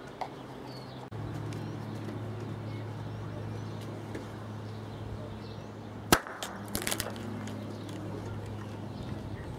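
Knalgas (oxyhydrogen from electrolysis) in a sealed plastic container ignited by a car ignition coil spark: one sharp, loud pop about six seconds in that blows the lid off, followed by a few quick knocks.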